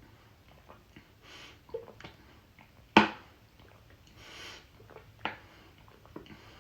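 A person chugging a soda: small wet gulping and swallowing clicks with two breaths drawn between swallows, and a sharp click about three seconds in.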